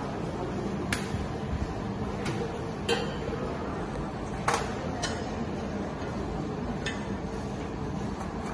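A handful of sharp metallic clinks and taps as hand tools and steel are handled, over a steady workshop hum; the loudest clink comes about four and a half seconds in.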